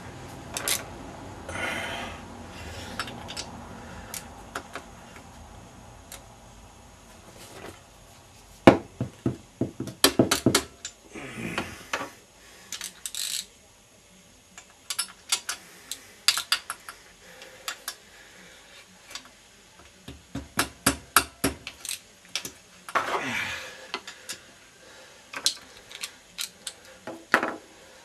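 Metal hand tools and parts clinking and knocking against each other in irregular clusters of sharp clicks, with a few short scraping sweeps.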